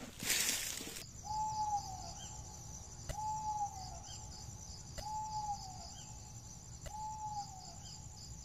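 A short rustle of the camera being handled, then a bird's single whistled note, held and dropping at its end, repeated about every two seconds over a steady pulsing trill of insects.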